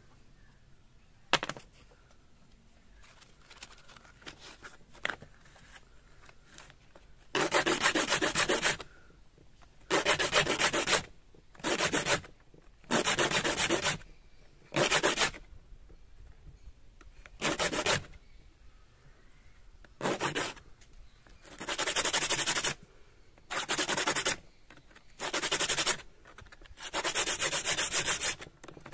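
A small disc of coconut shell is rubbed by hand on a strip of sandpaper, a rough scraping that comes in about eleven spells of a second or so with short pauses between. The scraping begins about seven seconds in, after a quiet stretch with one sharp click near the start.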